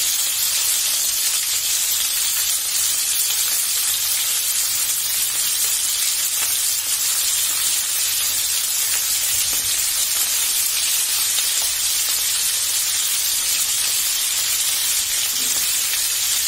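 Chicken skewers frying in hot oil in a frying pan, a steady unbroken sizzle. The skewers have just been turned, and the second side is cooking.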